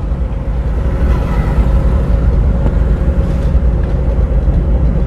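Car driving, heard from inside the cabin: a steady low rumble of engine and tyre noise with a faint steady hum.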